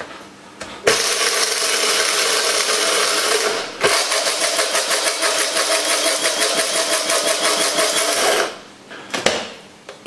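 Electric blade spice grinder running on a load of whole bird seed (sunflower seeds, corn, peanuts), grinding it to powder: a steady motor whine with a fast rattle of seed against the blade. It runs in two bursts with a brief pause a little before four seconds, followed by a couple of clicks near the end.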